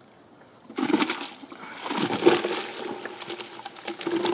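Dry cement powder pouring from a plastic bucket into a bucket of water: a steady, grainy rush that starts about a second in.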